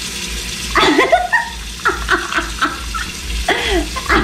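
A person laughing in several short bursts over a low steady rumble.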